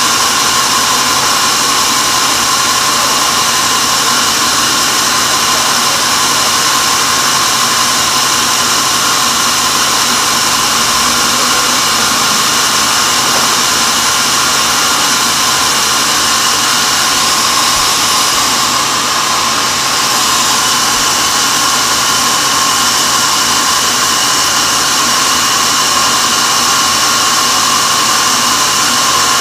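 A large log band sawmill running steadily, its band blade sawing a teak log, with a high steady whine over the machine noise.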